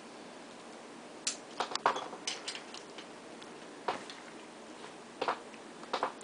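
Irregular metallic clicks and taps as a bicycle stem and its bolts are handled while the stem is worked onto the fork steerer: a quick run of clicks a second or two in, then single ticks every second or so.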